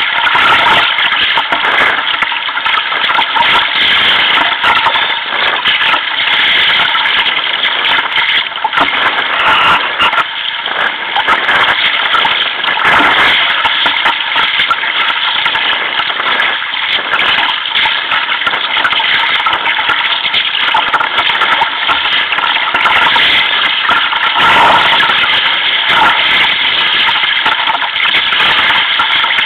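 Choppy sea water rushing and splashing against a sea kayak's hull and deck as it is paddled, a steady loud rush.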